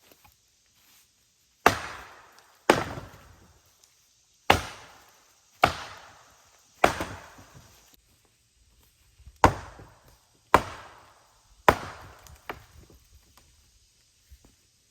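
Hard blows of a tool on wood: eight sharp strikes, mostly about a second apart with one longer pause, each dying away quickly, then a lighter knock.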